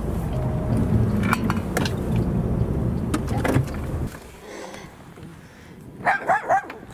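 Vehicle engine running, heard from inside the cab, with scattered clicks and rattles; the rumble stops abruptly about four seconds in as the door opens. Near the end a small dog barks three times.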